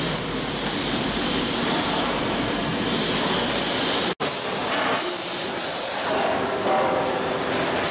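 Brewery production-floor machinery running with steam hissing from a venting machine, a steady noise that cuts out for an instant about four seconds in.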